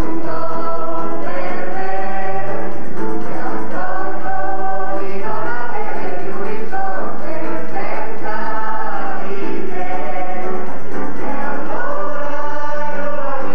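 A children's choir singing a song with long held notes, accompanied by an electronic keyboard.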